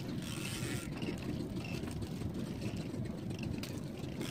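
Steady low rumble and hiss of a small boat at sea, with no distinct events.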